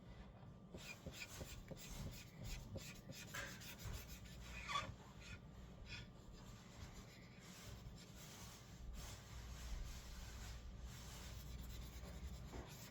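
The chisel tip of a marker rubbing over paper in repeated faint scratchy strokes as a large area is filled in with solid color.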